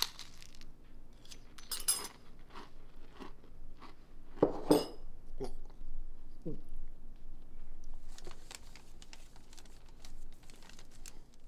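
A spoon clinking in a bowl and crunchy chewing of a mouthful of food, with a few sharp ringing clinks in the first five seconds. From about eight seconds in, a dense crinkling of a small crumpled paper note being unfolded.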